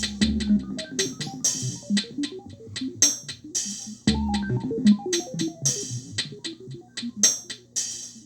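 Electronic music from a Korg Electribe groovebox and synthesizer: a looped drum-machine beat of quick hi-hat ticks with a deep kick repeating about every four seconds, under short synth notes.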